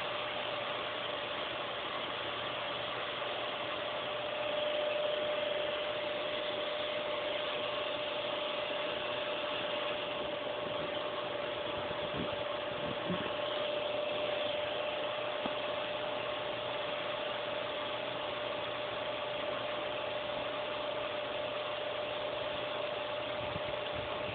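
Steady mechanical hum holding one constant tone over an even hiss, briefly a little louder about four seconds in.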